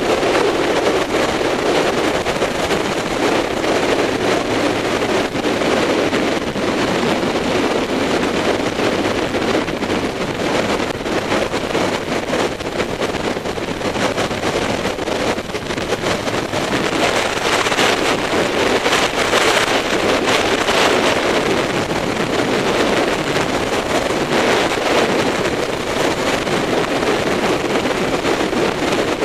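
Wind rushing over the microphone as a BMW K-series touring motorcycle is ridden at road speed, with engine and road noise underneath. The wind rush swells briefly about two-thirds of the way through.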